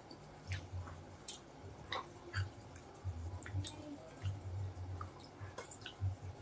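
Chewing and wet mouth sounds of people eating, with soft squishes and scattered small clicks.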